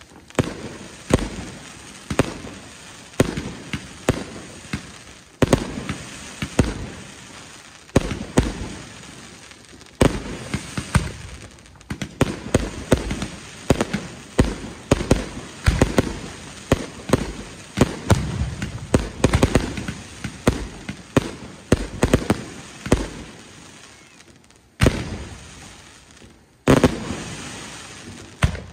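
Aerial fireworks shells bursting in quick succession, sharp bangs coming about once a second or faster with crackling in between. Two last loud single bangs near the end.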